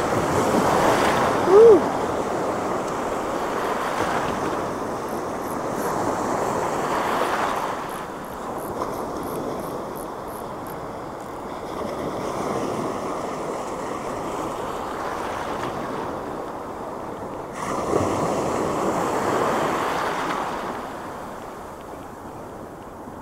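Sea surf breaking and washing over the shallows just in front, swelling and ebbing in repeated surges. A short squeak about a second and a half in is the loudest moment.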